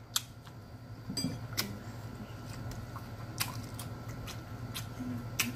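Chewing close to the microphone, with a handful of sharp clicks spread through it over a steady low hum.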